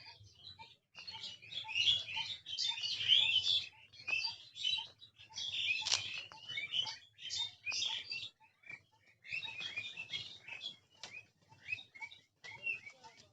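Several small songbirds chirping and twittering at once, in busy bursts with brief pauses, under a short lower note that repeats about twice a second.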